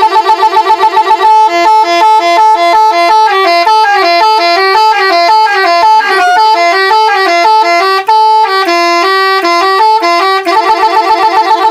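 Telolet musical air horn playing a tune: pulsing repeated chords at first, then a running melody of stepped notes, and about ten seconds in it goes back to the pulsing chords.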